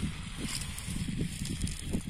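Low, uneven rumble of wind buffeting the microphone, with a faint hiss above it.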